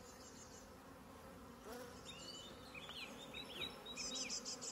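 Swarm of honeybees, a mix of Buckfast and black bees, buzzing in a steady low hum over the open hive box: a swarm the beekeeper takes to be calm and settling down into the frames. A run of short high chirps comes in about two seconds in and is loudest near the end.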